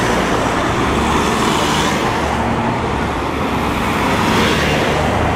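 Convoy vans driving past on the road, their engine and tyre noise swelling as a van goes by close and another approaches.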